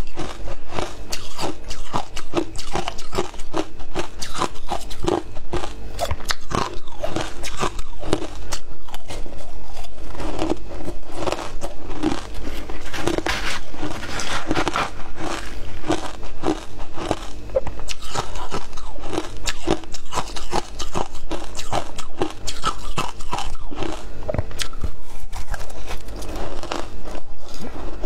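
Crushed ice dusted with matcha powder being bitten and chewed, a dense run of loud, irregular crunches and crackles.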